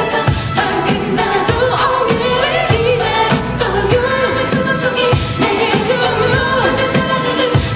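Korean pop song playing: a sung vocal line over a steady drum beat.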